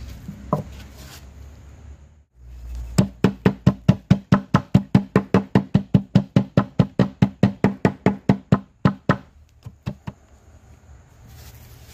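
Wooden block pounding lumps of charcoal wrapped in a cloth to crush them: a fast, even run of loud knocks, about five a second, starting about three seconds in and lasting some six seconds, then two single strikes.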